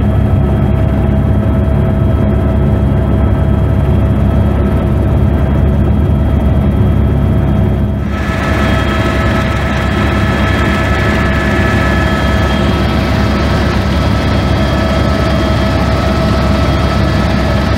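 Helicopter turbine engine and rotors heard inside the cabin: a loud steady drone with a steady whine on top. About eight seconds in, the sound changes abruptly to a brighter, hissier in-flight noise with higher whine tones.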